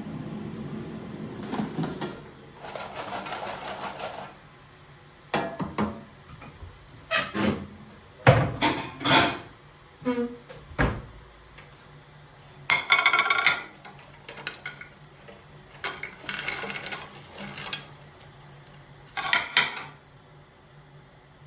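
Dishes and cutlery being handled: a string of separate clinks, knocks and brief clatters, some with a short ring.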